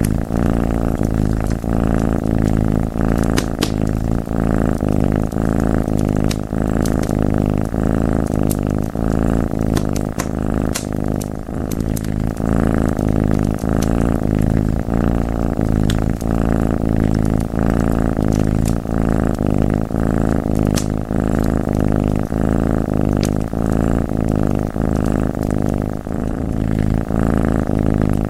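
Domestic cat purring loudly and steadily in even pulses about once a second, with scattered sharp pops of a crackling wood fire.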